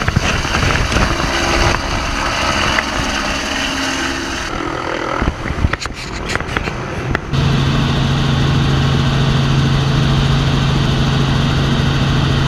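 Helicopter heard flying outside for the first half, with a few sharp clicks about five to seven seconds in. From about seven seconds it turns into a steady, even drone with a strong low hum, as heard inside a small helicopter's cabin in flight.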